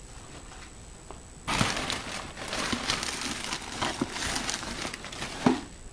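Crinkling, rustling handling noise with scattered clicks, starting about a second and a half in, with one sharper knock near the end.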